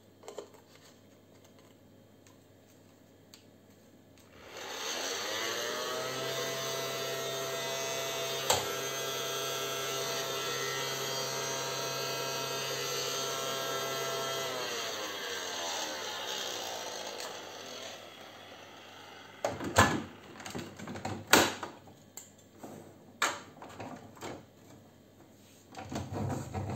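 ELC children's toy vacuum cleaner switched on: its vacuum-cleaner noise winds up, runs steadily for about ten seconds, then winds down. Several sharp plastic clicks and knocks follow as the toy is handled.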